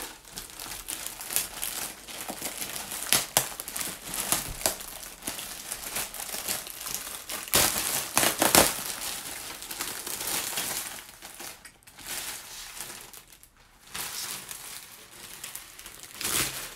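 Clear plastic polybag crinkling and rustling in irregular bursts as a backpack is pulled out of it, loudest about eight seconds in.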